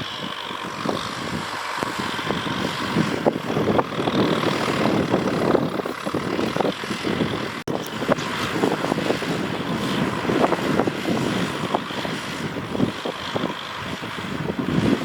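Tractor engine running steadily under load while plowing, with a rough, irregular clatter.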